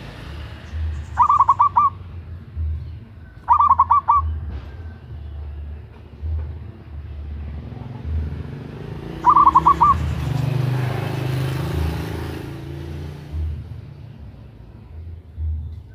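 Zebra dove (perkutut) calling: three short bursts of rapid, stuttering notes, about a second in, at three and a half seconds and near nine seconds. A low pulsing about once a second runs underneath, and a swell of hiss comes a little after the third call.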